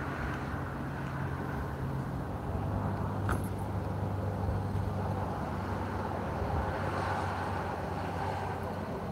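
A steady low motor hum under a constant rushing noise, the hum's pitch shifting slightly about two and a half seconds in, with one short click a little after three seconds.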